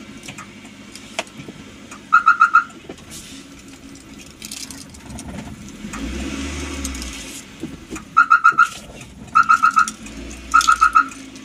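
Groups of four quick electronic beeps, four times, from the van's central-locking unit as it is being switched off, over the Maruti Suzuki Eeco's engine idling on CNG.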